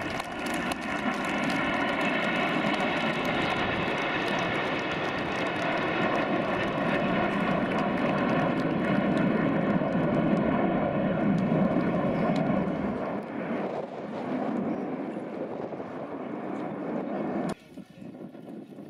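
Jet engines of an Avro Vulcan bomber and the Red Arrows' Hawk jets flying past together in formation: a loud, steady rumble with a whine of several steady tones above it, easing slightly about two-thirds through and falling away abruptly near the end.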